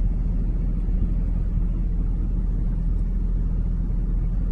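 Steady low rumble of a car on the move, heard from inside the cabin: road and engine noise.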